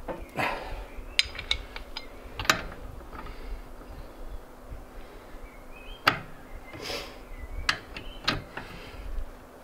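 3/8-inch ratchet tightening the spare wheel's lug nuts: scattered sharp clicks and metallic knocks as the handle is worked, with wind rumble on the microphone underneath.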